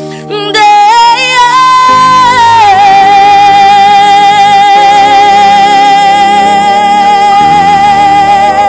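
Gospel singing: a solo voice runs up in short phrases, then holds one long high note with vibrato over the backing music.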